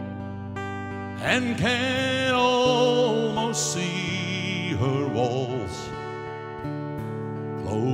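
Country band playing live, with guitars and drums; about a second in, a man starts singing a held, wavering vocal line.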